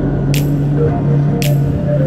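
Background music with a steady beat: a held low note, short melodic notes above it, and a crisp hit about once a second.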